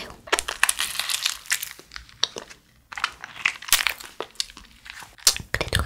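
Crinkling and crackling of the thin plastic shell of a fruit-shaped jelly candy as it is peeled and squeezed open in the hands. It comes in irregular runs of crackles with a short pause about halfway.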